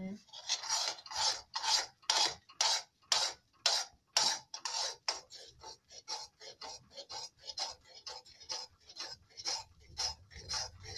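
A metal spatula scraping and stirring thick wheat-flour halwa (kada prasad) around a metal kadhai, in rhythmic strokes of about two a second that quicken and grow lighter about halfway through.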